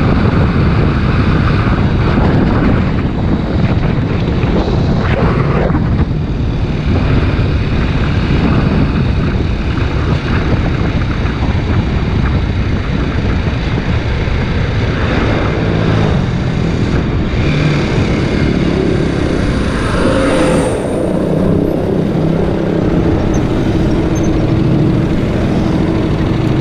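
Kawasaki Ninja 250 RR Mono's single-cylinder engine running on the move, heard with heavy wind rush over the helmet/bike-mounted microphone. In the last few seconds the engine note settles into a steadier, more even tone.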